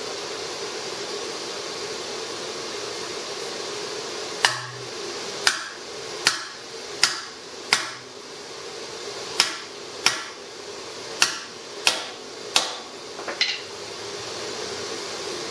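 About eleven mallet blows on a seal driver, seating a new axle seal in the end of a rear axle tube. The blows start about four seconds in and come in two runs with a short pause between, each blow sharp with a brief metallic ring, over a steady background hum.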